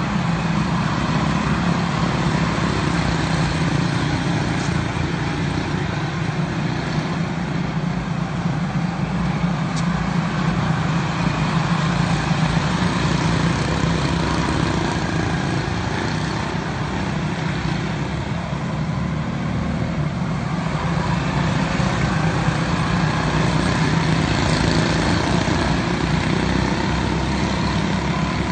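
A pack of quarter midget race cars with small single-cylinder Honda engines running laps at racing speed: a steady drone of several engines at once, swelling and fading a little as the pack comes round the oval.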